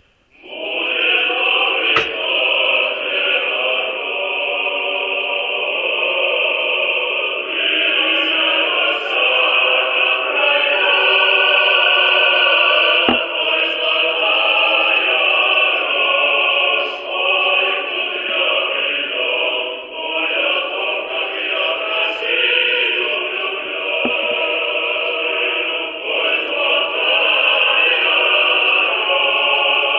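Choral music: a choir singing held, overlapping notes, starting abruptly and then continuing loud and steady.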